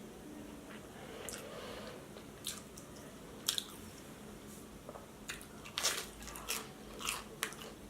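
Close-miked chewing and crunching of breaded vegan chicken nuggets and tater tots, with a few crisp crunches at first and a quicker run of them in the second half.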